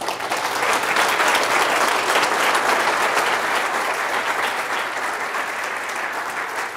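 An audience applauding after a lecture, many people clapping steadily and fading out near the end.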